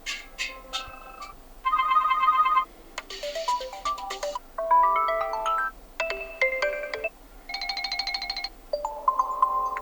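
TCL 40 SE default ringtones previewed one after another, each cut off after about a second: a string of short electronic melodies, among them quick rising arpeggios, plucked-sounding notes, a bright high chime and rapidly pulsing beeping tones.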